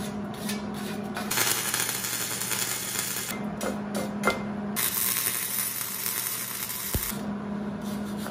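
Hand wire brush scrubbing a fresh MIG weld on steel tubing in bursts of strokes, with a few light clicks and one dull thump.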